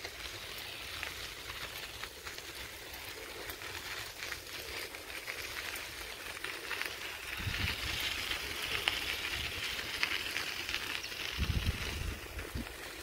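Steady crackling and crunching from moving along a gravel path through dry grass, with low wind buffets on the microphone twice in the second half.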